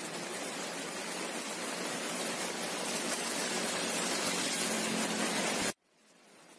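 Heavy rain falling on a road: a steady, even hiss that grows slightly louder, then cuts off abruptly near the end and comes back faintly.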